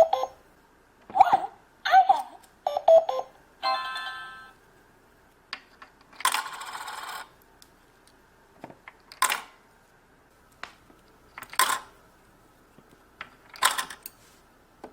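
Toy electronic cash register beeping as its keys are pressed, then a short electronic chime. A rattle follows, then a few sharp clinks of toy coins.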